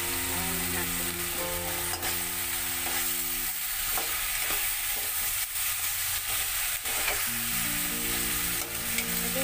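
Vegetables sizzling in a hot steel wok while a metal spatula stirs and scrapes against the pan. Soft background music plays for the first few seconds and again near the end.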